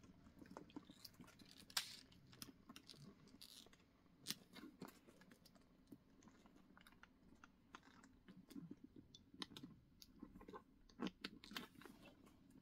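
Faint, scattered clicks and rustles of a Coach Brooke Carryall leather handbag being handled as its shoulder strap and metal strap clips are moved, with a few sharper clicks about two seconds in and near the end.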